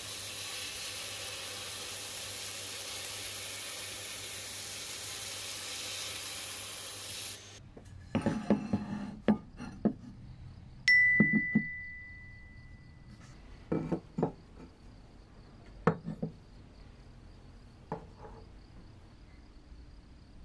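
Sandblasting: the steady hiss of a blast gun in a blast cabinet, which cuts off suddenly about a third of the way through. Then scattered knocks and clinks of bare metal coin-bank castings being handled on a wooden workbench, one clink ringing on with a clear tone for a couple of seconds.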